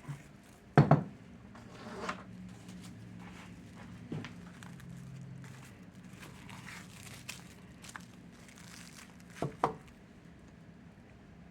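Plastic cling wrap being pulled out, torn off and crinkled over bowls, with a few sharp knocks.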